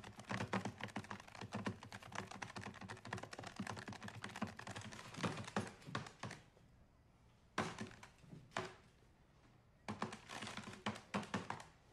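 Calculator keys tapped in quick runs of sharp clicks: a dense flurry for about six seconds, then two single taps, and another short flurry near the end.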